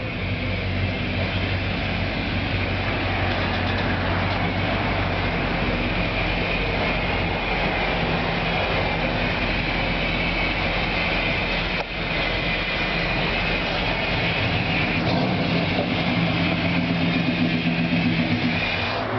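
Car engine running steadily, its hum shifting in pitch a couple of times.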